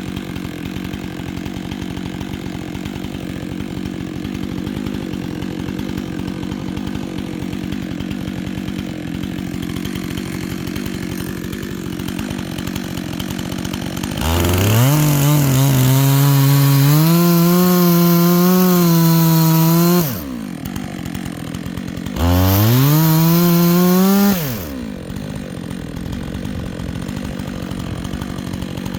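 Two-stroke chainsaw idling, then opened up to full throttle about halfway through for around six seconds, its pitch wavering while held. It drops back to idle, is revved again for about two seconds, and returns to idle.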